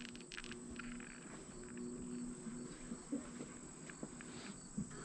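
Faint, steady high-pitched trill of crickets, with a faint low hum that comes and goes and a few soft ticks.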